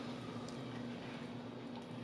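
Quiet room tone with a steady low hum and a few faint soft ticks.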